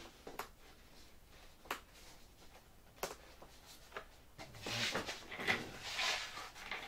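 Handling noise from a foam RC glider's wings: a few separate sharp clicks and taps as parts are fitted at the wing root, then, about four seconds in, a louder rustling and scraping as the other foam wing is picked up and moved.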